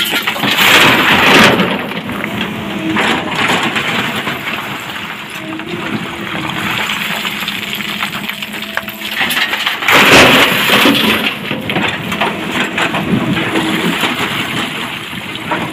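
Hydraulic excavator's engine running steadily as it digs and loads broken rock into a dump truck. Two loud rushes of rock crashing into the truck bed, about a second in and again about ten seconds in.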